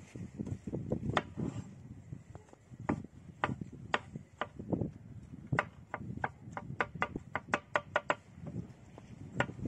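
A knife chopping on a wooden cutting board: a few spaced strokes, then a quick run of about a dozen chops at roughly five a second past the middle, and one more near the end.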